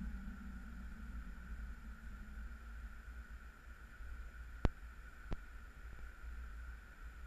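Wind buffeting the microphone of a camera on the sand, a low uneven rumble. Two sharp clicks come less than a second apart a little past the middle.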